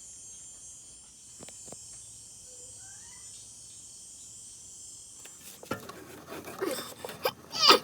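Steady high insect chirring for about five seconds, which then cuts off abruptly. It is followed by a quick run of knocks and scrapes, the loudest one near the end.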